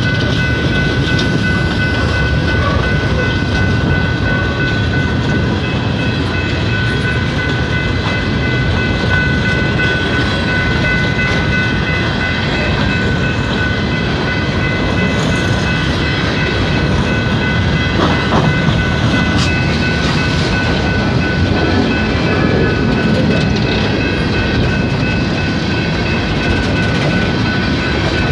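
Freight train of coal cars rolling past close by: a steady loud rumble and clatter of wheels on rail. A steady high-pitched whine rides over it, and there is one sharp click about two-thirds of the way through.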